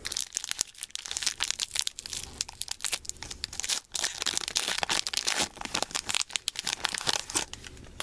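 Foil wrapper of a Pokémon trading-card booster pack crinkling and tearing as it is opened by hand, a dense irregular crackle with a brief pause about four seconds in.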